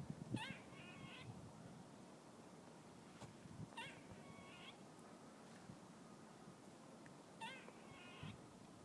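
A squirrel giving three short, high, wavering calls, each about a second long and a few seconds apart.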